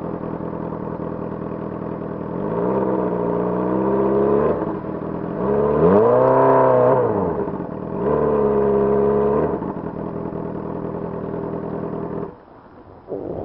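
A 2006 Honda CBR600RR's inline-four engine idling, then revved three times: a short held rev, a higher rev that climbs and falls back, and another held rev, before settling back to idle. The engine sound cuts off near the end.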